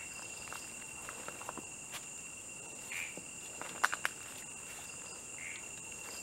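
Night chorus of crickets and other insects, a steady trilling held at a few fixed pitches. Scattered small clicks and rustles sound over it, with a few sharper clicks about four seconds in.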